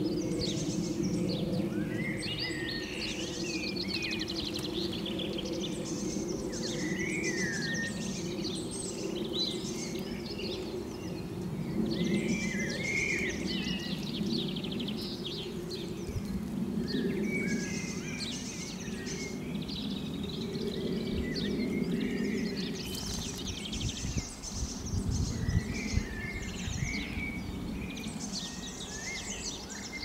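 Small garden birds chirping and singing in short phrases over a steady low hum. There are irregular low thumps in the last few seconds.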